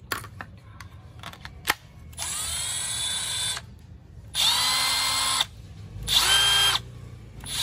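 Milwaukee M12 2553 brushless impact driver run with no load in short trigger pulls. Each pull is a whine that rises quickly to a steady pitch: three runs of about a second each, the later two louder, and a fourth starting at the very end. A few light handling clicks come before the first.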